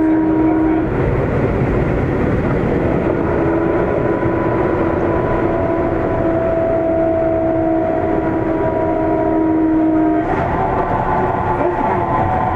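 Sendai Subway Namboku Line 1000 series train heard from inside the car while it runs. The Mitsubishi IGBT-VVVF traction inverter and motors give several steady tones over the rumble of wheels on rail. About ten seconds in the tones shift, and near the end one of them begins to fall.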